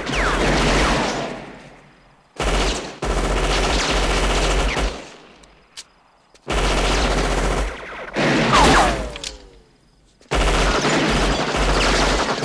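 A gunfight on a film soundtrack: about five loud gunshots a few seconds apart, each ringing out with a long echo. Some are followed by a falling ricochet whine.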